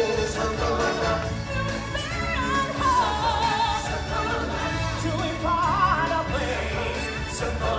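Live show music: a solo singer holding long notes with a wide vibrato over a steady backing with a low beat.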